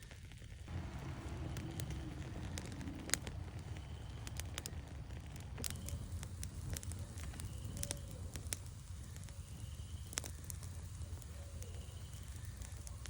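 Small campfire of rain-wet wood, started with pine fatwood, burning: a steady low rush of flame with scattered sharp pops and crackles, the loudest about three seconds in.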